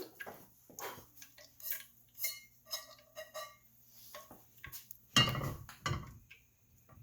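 Kitchen clatter: pots, pans and utensils being handled and set down, with a few short clicks, brief ringing of metal or crockery, and two louder knocks about five and six seconds in. A faint steady low hum runs underneath.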